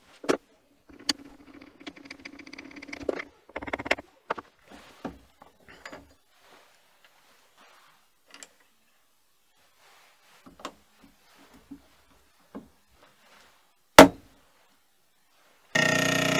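Steel parts being handled and seated in a machine vise: scattered light clicks and metal scrapes, and one sharp, very loud knock about fourteen seconds in. Near the end a milling machine spindle starts running with a steady even whine.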